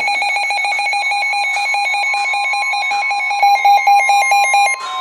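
Electronic emergency alert tone: a loud beep pulsing about ten times a second, with a higher tone stepping rapidly up and down over it, cutting off just before the end.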